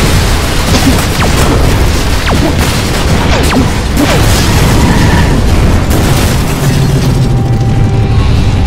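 Loud, dense booms and explosions with music underneath, with short falling whistles cutting in every second or so.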